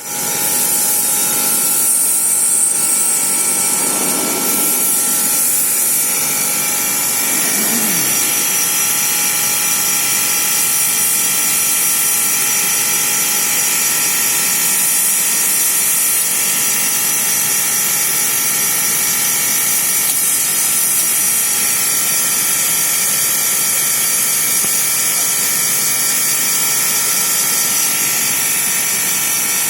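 Automatic lathe machinery running steadily, a continuous mechanical whir and clatter with several steady whining tones.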